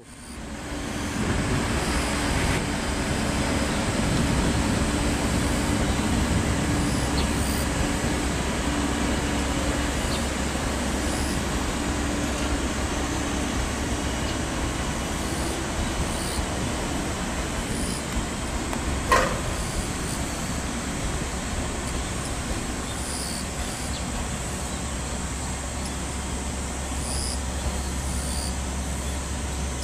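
381-series electric train moving slowly along the tracks: a steady running noise with a low drone, and a single brief sharp metallic sound about two-thirds of the way through.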